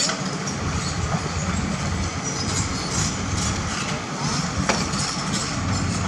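Komatsu PC200 hydraulic excavator's diesel engine running steadily, with a single sharp knock about three-quarters of the way through.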